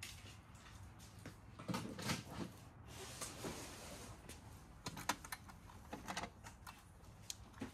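Scattered light clicks, knocks and rustling of vintage toy train cars being handled.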